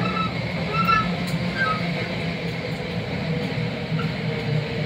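Interior running noise of a Class 323 electric multiple unit travelling at speed: a steady low rumble of wheels on rail, with a few short high squeaks in the first two seconds.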